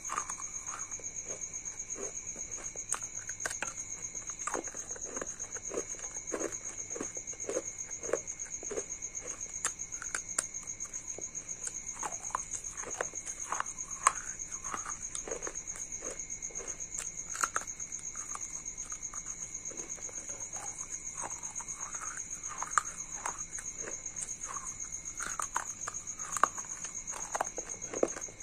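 Close-up crunching and chewing of broken terracotta diya (clay lamp) pieces coated in white paste: irregular crisp crunches and crackles, sometimes several a second. A steady high whine runs underneath.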